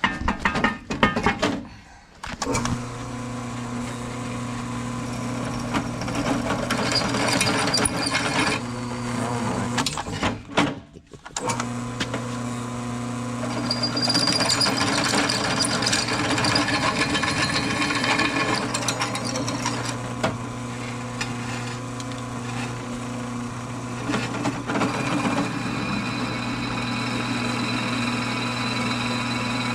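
Power drill running steadily while boring holes, stopping briefly twice: about two seconds in and again about eleven seconds in.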